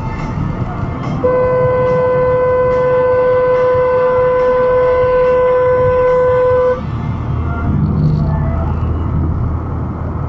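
Car horn sounded in one long, steady blast of about five and a half seconds, a single note that cuts off abruptly, over continuous road and engine noise from a moving car.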